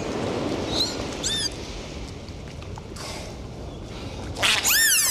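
High-pitched squeaks with a glassy, overtone-rich tone, each rising and then falling in pitch. A few faint ones come about a second in, and a loud, longer one near the end, over a steady background hiss.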